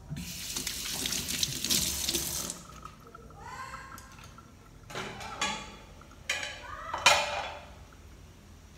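Water running, as from a kitchen tap, for about two and a half seconds, then several clanks of pots and pans, the loudest about seven seconds in.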